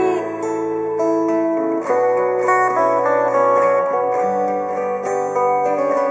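Music played back through KEF Q300 bookshelf speakers: a plucked-string instrumental passage of held notes that change about once a second.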